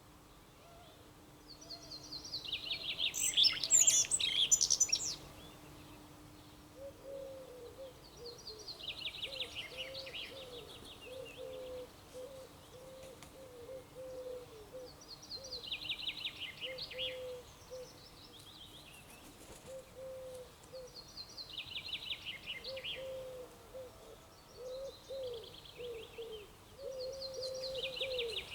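A songbird singing a short, falling, trilled phrase again and again, about every six seconds, the first one the loudest. From about seven seconds in, a lower, quieter call runs beneath it as a string of short repeated notes.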